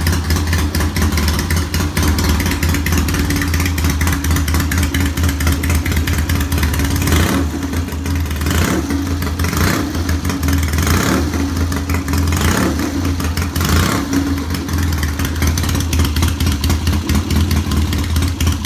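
Freshly restored vintage British motorcycle engine running on its first start. It runs with a steady beat, and the throttle is blipped about six times in the middle, each blip a short rise in revs. The idle and mixture are not yet set.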